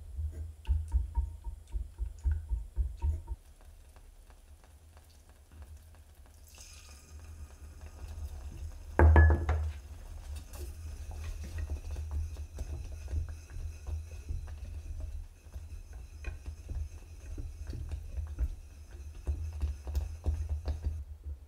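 Silicone whisk beating a thin custard mixture of condensed milk and egg yolks in a saucepan, in quick rhythmic strokes that stop for a few seconds and then start again. About nine seconds in there is a single louder knock as an egg yolk is added.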